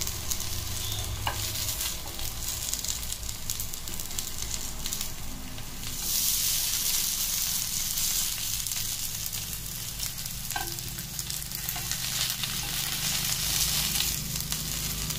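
Pomfret fish steaks sizzling in oil on a dosa griddle (tawa) while they are turned over with spatulas, with a few light knocks of the spatulas on the pan. The sizzle grows louder about six seconds in.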